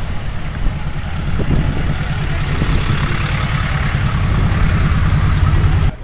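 Low rumble of car and truck engines idling in stopped traffic, growing a little louder toward the end.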